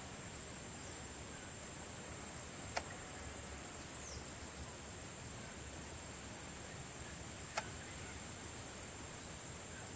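Quiet outdoor ambience with a steady high-pitched whine, broken twice by a sharp short tick, about three seconds in and again near eight seconds.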